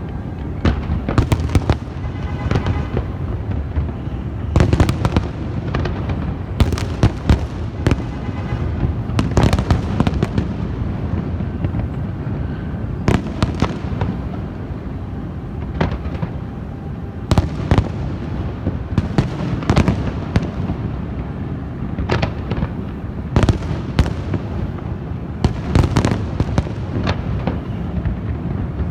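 Fireworks going off in a dense barrage: many sharp bangs and cracks in quick, irregular succession over a constant low rumble of further explosions.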